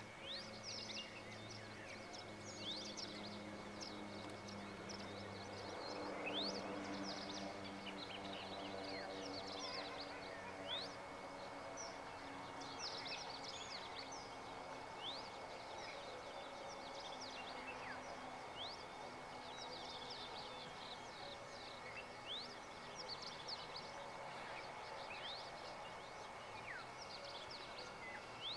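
Outdoor ambience of small birds chirping: many short, quick high chirps scattered throughout, over a faint low hum that shifts slowly in pitch and a steady thin high tone.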